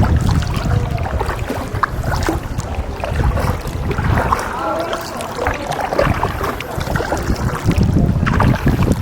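A canoe moving on the water, with paddle and water noise and wind buffeting the microphone in uneven gusts, strongest at the start and again near the end.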